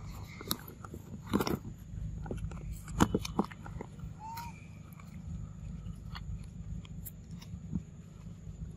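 Baby monkey chewing and smacking on food, a string of irregular wet clicks and crunches, with one short squeak about four and a half seconds in.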